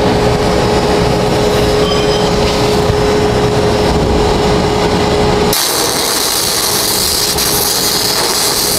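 A steady low hum with a thin whine, then about five and a half seconds in a stick-welding arc on a 1/8-inch E6010 rod strikes and burns with a steady crackling hiss, laying a tack weld.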